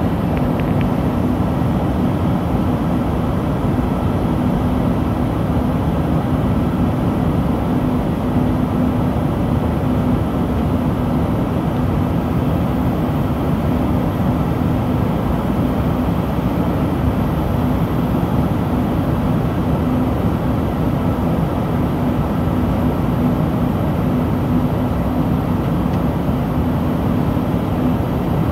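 Steady cabin noise of an Embraer ERJ-145 regional jet in flight after takeoff: the rush of air and the hum of its two rear-mounted Rolls-Royce AE 3007 turbofans, with a steady low drone.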